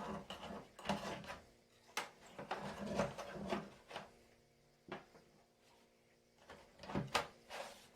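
Knocks, clatter and scraping as baked mini empadas are loosened and tipped out of their baking tins, several short sharp knocks, the loudest about two seconds in and around seven seconds in.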